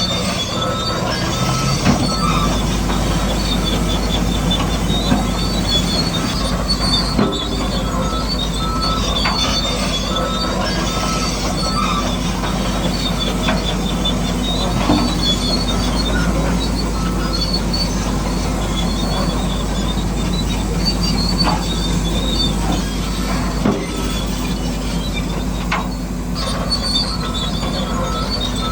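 Bulldozer running continuously, its metal tracks squealing and clanking over a steady low motor hum, with a few short knocks along the way.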